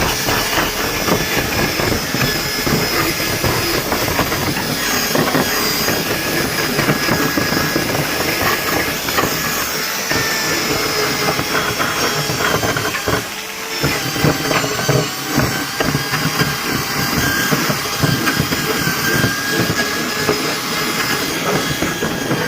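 Electric power tool running continuously on wood, a steady hissing whine that dips briefly about halfway through.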